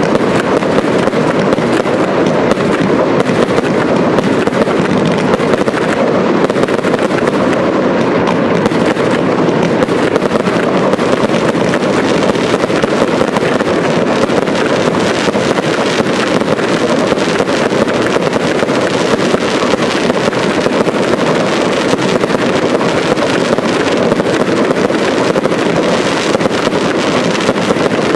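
Fireworks display in a dense, unbroken barrage: aerial shells and crackling effects go off in rapid succession with no pause between them.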